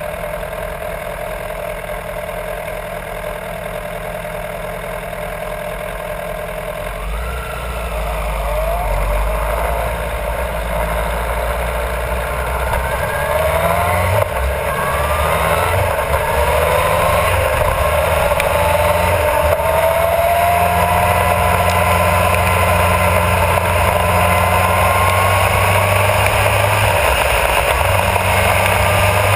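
Honda CBR1000RR Fireblade's inline-four engine, heard along with wind and tyre noise: running steadily at low speed for several seconds, then accelerating, its pitch climbing in several short rising runs and then in one long slow rise as it gets louder.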